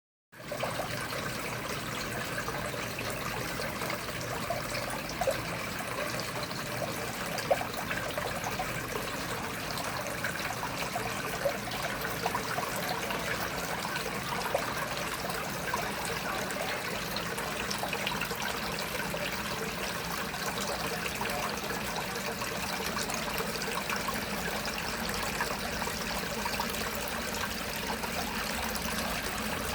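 Water trickling steadily, with many small pops and crackles and a few louder pops along the way.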